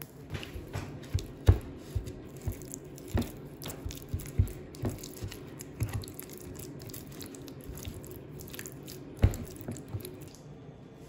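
Silicone spatula stirring and mashing brown miso into a thick white paste in a plastic tub: irregular soft squelches and knocks against the tub, the loudest about a second and a half in and again near nine seconds.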